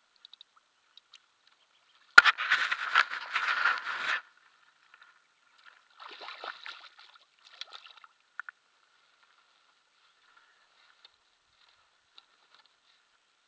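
Water splashing beside the boat as a barbel is handled and released by hand: a loud burst of splashing lasting about two seconds, beginning about two seconds in with a sharp slap, then a weaker splash about six seconds in, followed by a few small drips and taps.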